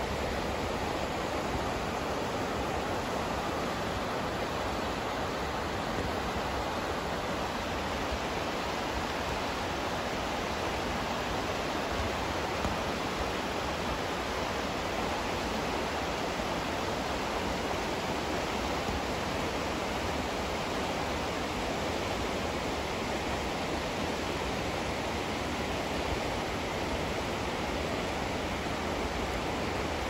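River water rushing over rocks and through shallow rapids: a steady, even rush that does not change.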